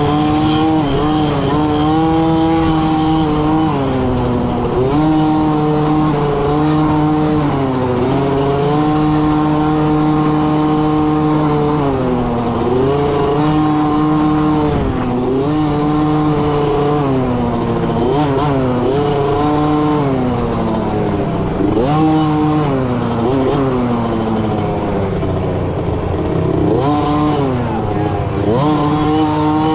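Small youth dirt bike engine heard close up from on the bike, running hard with the pitch repeatedly dropping and climbing again as the throttle is rolled off and opened back up.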